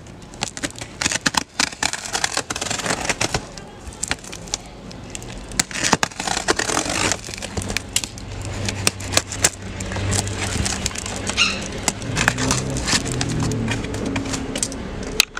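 Plastic stretch wrap crinkling and crackling as it is slit with a box cutter and peeled back from a large cardboard box, with many sharp clicks. A low engine hum from passing traffic rises about halfway through and fades before the end.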